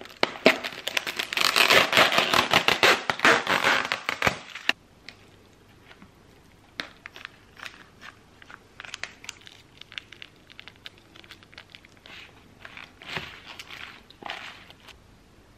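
Thin clear plastic salad tub crinkling and crackling, loud and dense for about the first four and a half seconds and then cutting off suddenly. After that come softer scattered clicks and rustles as a metal fork tosses the salad in the plastic tub.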